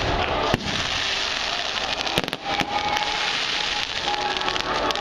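Fireworks display: continuous dense crackling of bursting fireworks, with sharp bangs about half a second in and several more between two and three seconds in.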